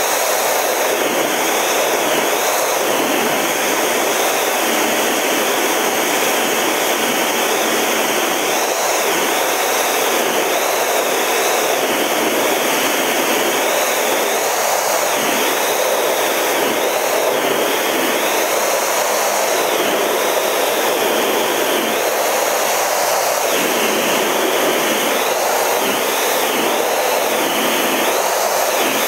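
Steady jet engine and airflow noise inside the cockpit of a Snowbirds CT-114 Tutor flying in formation: an even rushing noise with a high whine that wavers up and down.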